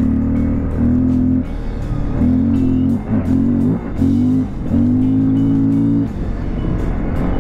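Dirt bike engine pulling along at a steady pitch, the throttle easing off and coming back on several times, about once a second.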